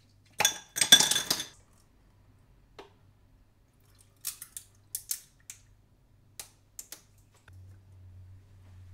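Ice cubes dropped into a drinking glass, a quick cluster of ringing clinks about half a second in. Several seconds later a few light separate clinks and ticks of the ice as cold water is poured over it.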